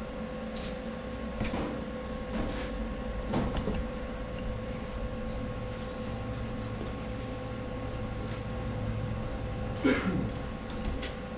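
Steady workshop hum with scattered light knocks in the first few seconds and one sharper metallic clank about ten seconds in.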